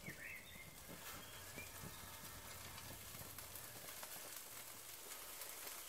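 Raw sardines sizzling faintly on a gas grill's grate at low heat as more are laid down one after another, with a few soft taps.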